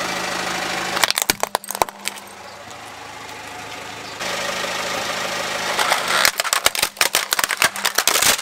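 Car engine running at low speed while a tyre rolls over and crushes small plastic toys: a quick cluster of plastic cracks and snaps about a second in as a spinning-top toy is flattened, then a longer, denser run of cracking and snapping from about six seconds in as a red plastic toy truck is crushed.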